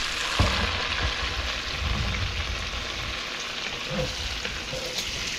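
Chopped bacon sizzling steadily as it fries in its own grease in a pot on high heat, stirred with a wooden spatula that gives a few light knocks against the pot.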